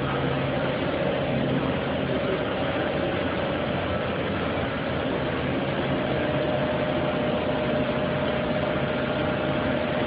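Steady machinery noise from a solid surface production line running: an even, continuous din with a faint steady hum, unchanging throughout.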